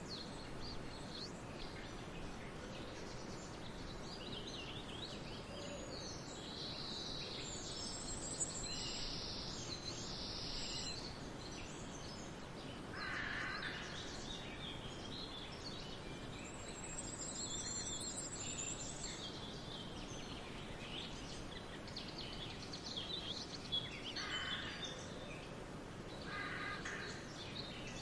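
Forest birds singing and calling over a steady background hiss: many high chirps and trills, and a few lower calls.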